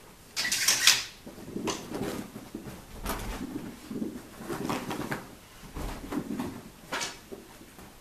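Savannah cats chasing a string wand toy: scrambling paws, soft thumps and rustles on carpet and bedding, with a loud rustling scrape about half a second in and sharper knocks now and then.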